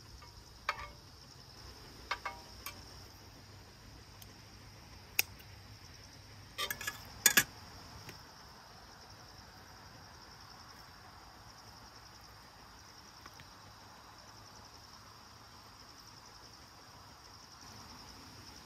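Steady high-pitched chorus of summer insects, with a few sharp clicks and knocks scattered through, the loudest cluster about seven seconds in.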